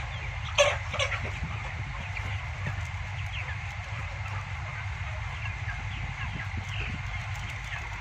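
A flock of broiler chickens clucking and peeping, many short calls overlapping, over a steady low hum. A single sharp knock about half a second in.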